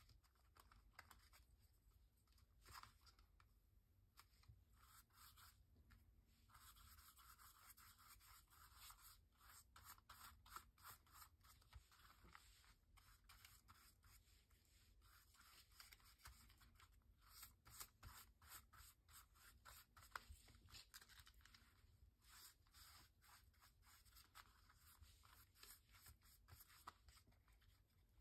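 Faint, irregular scratching and rubbing: a paintbrush spreading glue over collage paper, with the paper pressed down and handled.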